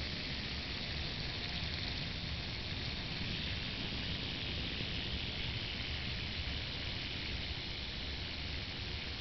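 A yo-yo spinning in a sleep at the end of its string: a steady whirring hiss with a low rumble underneath.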